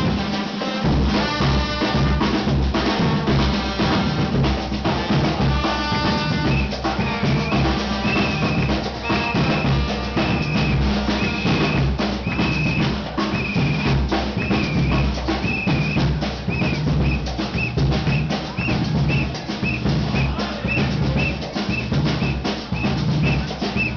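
Samba music driven by drums and percussion. From about seven seconds in a high note joins, held at first and then repeated in short notes about twice a second.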